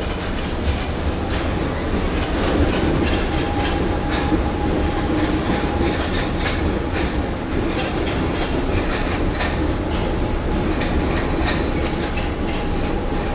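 Former Tokyo Marunouchi Line subway train running through the station: a steady rumble with many quick clicks of steel wheels over the rails.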